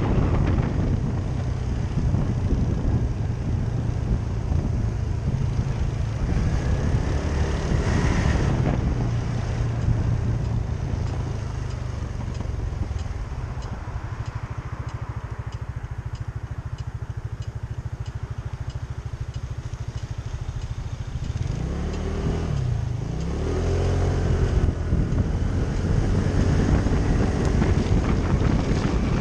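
Motorcycle engine running under way, with wind rush over it. About three-quarters of the way through, the engine note drops and then climbs again as the bike slows and picks up speed.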